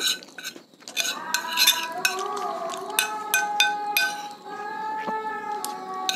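Metal cutlery clinking and scraping on a ceramic plate while eating, in sharp uneven clicks. Behind it, from about a second in, long held chanted notes carry faintly from a mosque loudspeaker: the pujian praises sung before the maghrib call to prayer.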